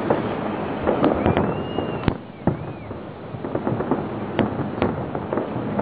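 Aerial fireworks display: a dense run of bangs from bursting shells over a steady crackle. Near the middle there are a few short whistles that rise and fall, and the bangs then pick up again.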